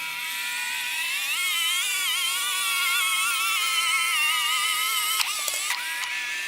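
Electric wheel drive motors of a homemade Arduino-controlled robot lawnmower whining as it drives, the pitch wavering up and down over a steady hum. A few clicks and a brief dip in the whine come about five seconds in.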